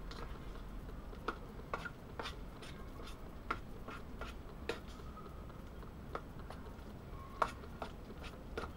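A spoon stirring thick baked beans in a metal pan, giving irregular light clicks and taps against the pan over a low steady rumble.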